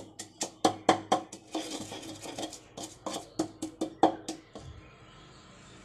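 Wooden pestle pounding in a wooden mortar, a quick steady run of dull knocks at about four a second, with a brief grinding scrape around two seconds in. The pounding stops about four and a half seconds in.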